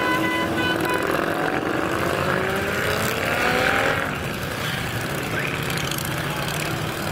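Several motorcycles riding past one after another, their engines rising in pitch as they pull away over the first four seconds, then a steadier, slightly quieter engine sound as the next bikes pass. A steady tone sounds for about the first second.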